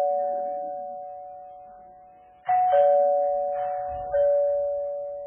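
Two-note doorbell chime ringing ding-dong, a higher note then a lower one, each note ringing on and slowly dying away. The tail of one ding-dong fades first, then about two and a half seconds in the chime sounds again, and the low note is struck a second time a moment later.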